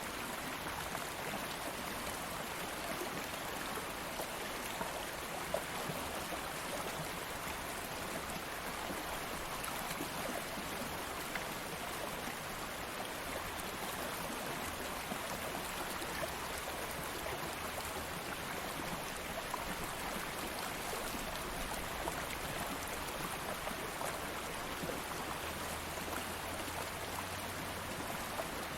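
Stream of water flowing steadily over stones, an even rushing with small splashes and trickles scattered through it.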